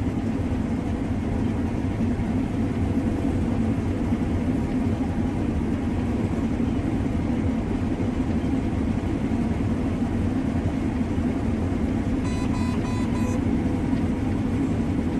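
Combine harvester engine running steadily with a low, even hum. About twelve seconds in, a short run of rapid electronic beeps sounds over it for about a second.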